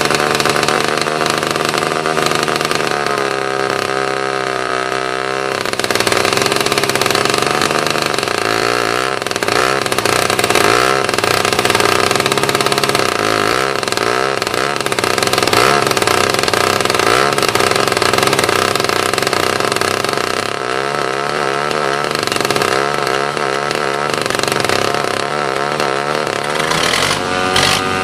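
Small two-stroke pony (starting) engine of a DT-75 crawler tractor running steadily while it cranks the main diesel, its note wavering in stretches under the cranking load. Near the end a new rising note comes in as the diesel catches and starts, smoking heavily.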